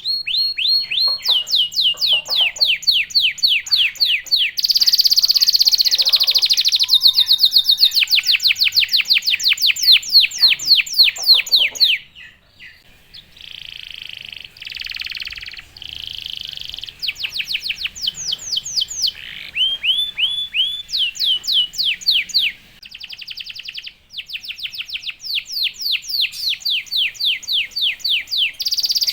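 Domestic canary singing a loud, fast song: rapid trills of repeated down-slurred notes in phrases that change every few seconds. It drops to softer notes for a few seconds about midway, then picks up into trills again.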